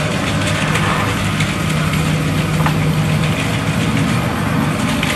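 A motor running steadily with a low, even hum. A capped plastic bottle of mixed paint is being shaken by hand, adding a couple of faint knocks.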